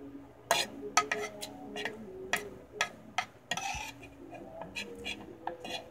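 Metal spoon clinking and scraping against a ceramic plate: a quick series of sharp clicks, with one longer scrape about three and a half seconds in.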